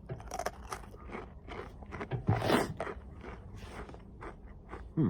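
Crunching and chewing of a Takis Volcano rolled corn tortilla chip: a run of sharp crunches, loudest about halfway through.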